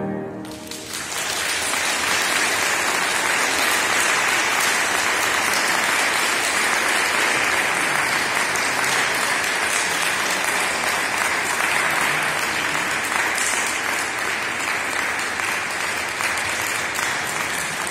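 A concert audience applauding, steady and dense, after the last chord of a grand piano fades out in the first second; the clapping thins out near the end.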